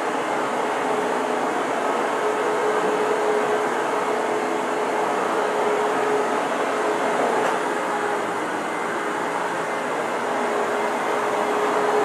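Hoover WindTunnel upright vacuum cleaner running steadily: a continuous rush of air with a steady hum, swelling slightly near the end as it comes close.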